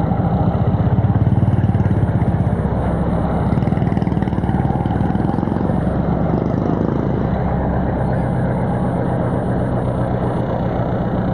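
A small engine running steadily at an even speed, with a low, fast-pulsing hum.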